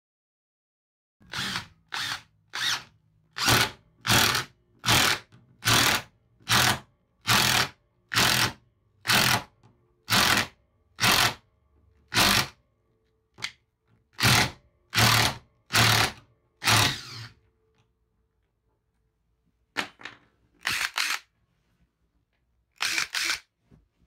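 Cordless power drill run in a long series of short trigger pulls, each a burst of about half a second, a little under one a second. After a pause of a couple of seconds come a few more bursts, two of them close together.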